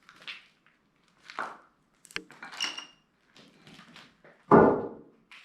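Scattered short knocks and rustles, with a sharp click and a brief high squeak around the middle, then a single loud, dull thump near the end.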